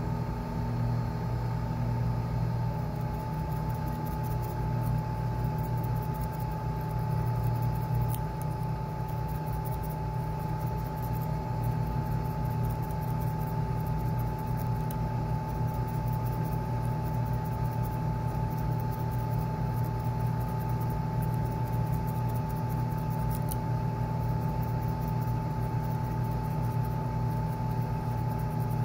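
Steady mechanical hum: a constant low drone with a fainter higher tone above it, unchanging throughout.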